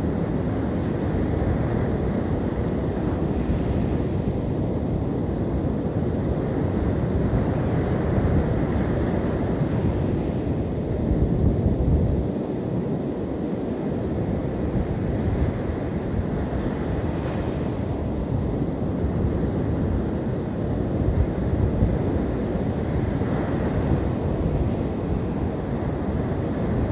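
Sea surf breaking on the beach, with wind rushing over the microphone: a steady low rushing noise that swells slightly about eleven seconds in.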